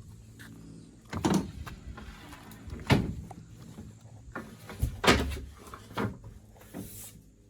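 About five heavy clunks and knocks at irregular intervals, the loudest about three and five seconds in, from hands-on work on the metal body and floor of a school bus.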